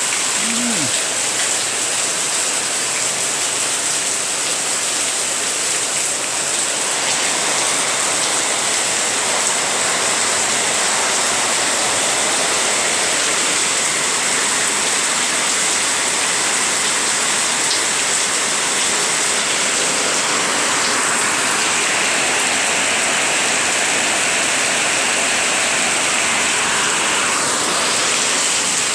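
Heavy rain falling, a steady, even hiss of water with no let-up.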